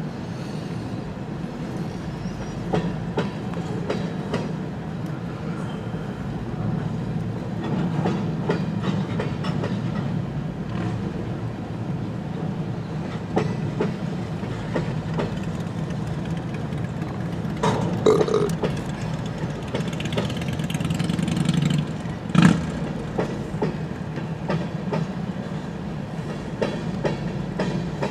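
Long CN freight train rolling slowly past: a steady low rumble with the clickety-clack of wheels over rail joints. A couple of louder clanks come about two-thirds of the way through.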